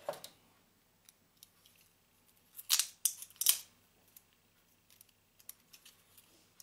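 Small hand tool working at a small circuit board from an office phone's LCD: scattered light clicks, then three sharp snaps close together about three seconds in.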